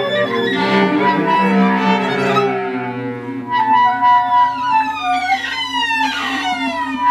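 Music of sustained, drawn-out tones over a low held drone, with higher sliding, gliding tones entering about halfway through.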